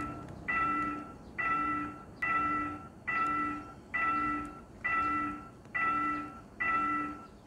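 Railroad level-crossing warning bell ringing in a steady repeated ding, a little more than one strike a second, each strike a bright ringing tone that dies away. It signals that a train is approaching and the crossing is closing.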